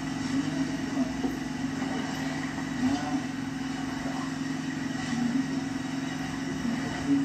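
Steady low motor hum with small bumps in it and a short thump near the end.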